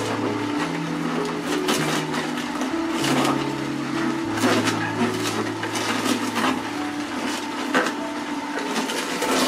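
Hurom H320N slow juicer crushing celery and fennel in its auger, with irregular crackling and crunching. Background music with held bass notes that change about once a second plays under it.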